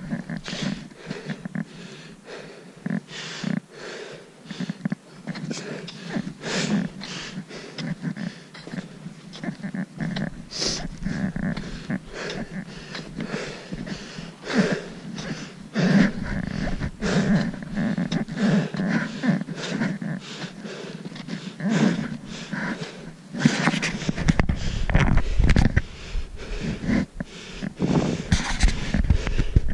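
A hiker's heavy breathing close to the microphone and regular crunching footsteps in snow. A low rumble joins near the end.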